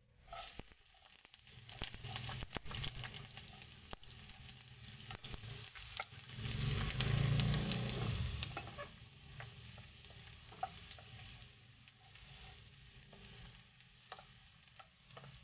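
Diced onions dropping into hot oil in a nonstick wok and sizzling, stirred with a wooden spoon that clicks and scrapes against the pan. The loudest stretch, about six to nine seconds in, has a low rumble under the sizzle.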